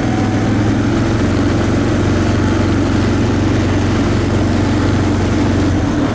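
ATV engine running steadily under way, a constant low hum. The engine note drops away near the end.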